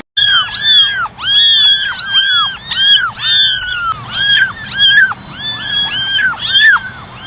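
Kittens meowing over and over: high-pitched calls that rise and fall in pitch, about two a second, some overlapping.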